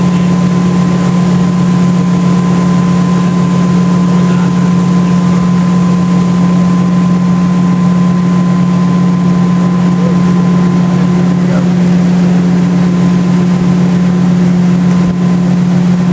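Tow boat's inboard engine running steadily at towing speed, a loud even drone with a faint high whine above it and the rush of wind and water.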